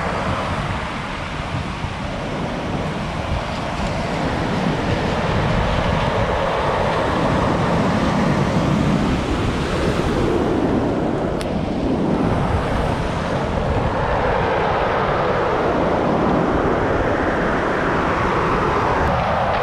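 Rough sea surf breaking and washing up a pebble beach, a steady rush that swells louder about midway and again near the end.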